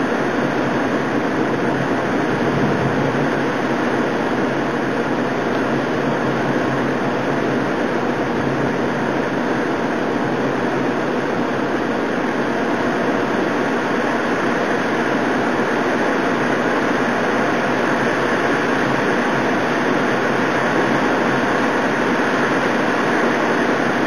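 Torrential thunderstorm downpour driven by high wind: a steady, even roar of heavy rain.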